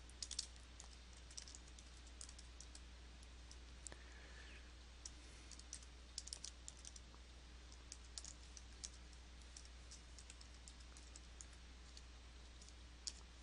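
Faint computer keyboard typing, keystrokes coming in short runs with pauses between, over a low steady hum.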